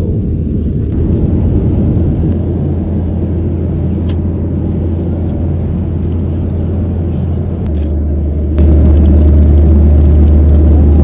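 Passenger jet cabin noise during the climb after takeoff: a loud, steady low engine and airflow rumble heard from inside the cabin, growing noticeably louder near the end.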